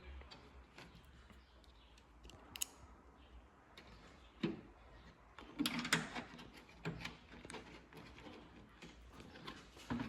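Scattered clicks and knocks of hand tools working on the trunk lid as the lid lock's mounting bolts are refitted, with a louder cluster of knocks about six seconds in.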